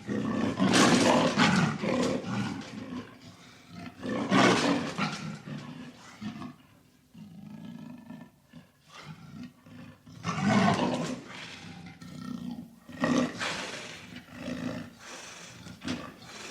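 Leopard roaring and growling: several loud roars, about a second in, around four and a half seconds, around ten to eleven seconds and around thirteen seconds, with quieter rumbling growls between them.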